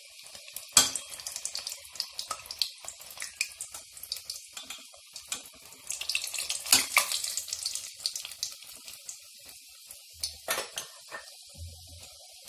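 Maida puri deep-frying in hot oil in a steel pot: a steady sizzle with bursts of sharp spitting crackles as the steel katori mould is lifted out and the puri is moved, including a few louder snaps. The crackling dies back to the sizzle for a couple of seconds near the end, then flares briefly once more.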